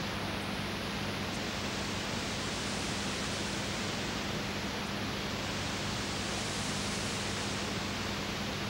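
Steady, even hiss with a constant low hum underneath, the background noise of an old videotape recording. No hoofbeats, mallet strikes or voices stand out.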